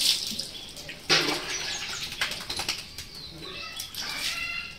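Water poured from a mug splashing over a wet Doberman puppy and onto a concrete floor, with one loud splash about a second in and smaller splashes after. A short high-pitched call sounds near the end.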